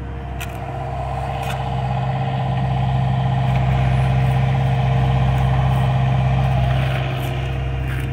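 John Deere 50G compact excavator's diesel engine running as the machine swings and moves its boom, rising in level from about a second in and easing off near the end. A couple of sharp clicks come in the first two seconds.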